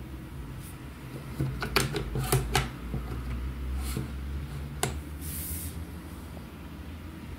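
Handling noise: a quick run of light clicks and taps about two seconds in, two more single clicks later, over a steady low hum.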